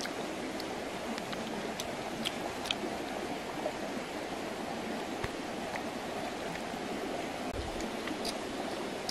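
Steady rushing background noise, with small scattered clicks from a dog and a person eating.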